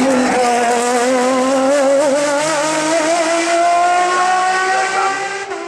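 Hill-climb race car engine running at high revs, its pitch climbing slowly with small wavers, easing off slightly near the end.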